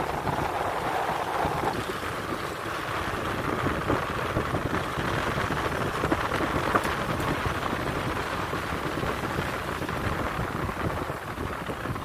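Rain falling on a moving car, mixed with engine and road noise, heard from inside the cabin as a steady hiss.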